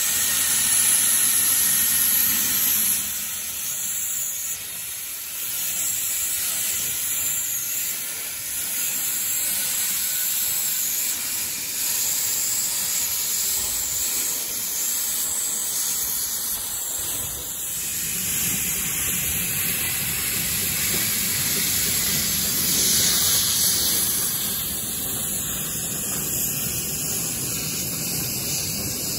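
Steam hissing steadily from a Hunslet quarry steam locomotive as clouds of it escape low around the cylinders. It is louder for the first three seconds and again briefly about 23 seconds in.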